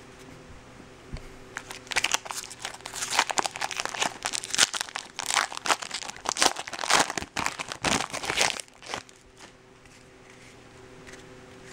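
Foil wrapper of a 2013 Bowman baseball card pack being torn open and crinkled in the hands, in irregular crackling from about two seconds in until about nine seconds in.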